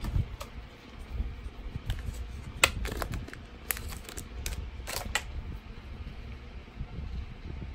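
Plastic highlighter pens clicking and clattering against each other as they are picked up and handled, with a cluster of sharp clicks between about two and a half and five seconds in. A low steady hum runs underneath.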